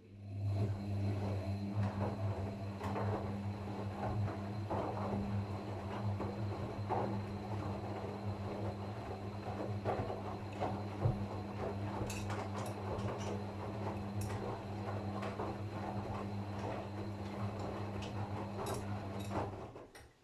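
Gorenje washing machine running on its short programme: a steady low hum with rough swishing and scattered clicks that starts suddenly and stops abruptly after about nineteen seconds.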